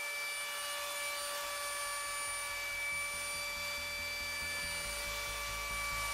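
Steady whine and hiss of a running workshop machine motor, with a low rumble coming in partway through.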